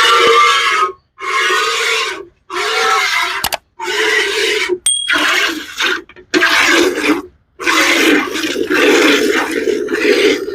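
Buffalo milk squirting into a pail in a run of hissing bursts about a second each, with short breaks between them; near the end the bursts run together.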